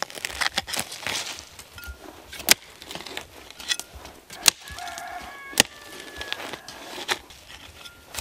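A hoe chopping into forest soil and roots as a bamboo shoot is dug out, with sharp irregular strikes about every second. A rooster crows once about five seconds in.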